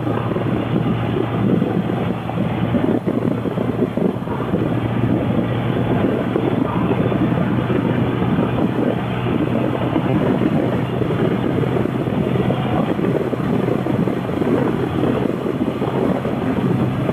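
Motorcycle cruising at a steady speed: a steady engine drone under wind rushing over the microphone.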